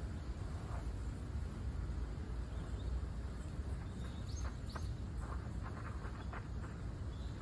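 Steady low outdoor rumble, with a few short scuffs and rustles from about the middle on as a person shifts his feet on leaf-strewn pavement.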